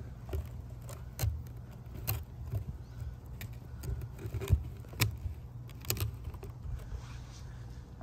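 Handling noise: a cardboard box tilted and jostled by hand, giving irregular light clicks and scrapes, about six in all, over a steady low rumble.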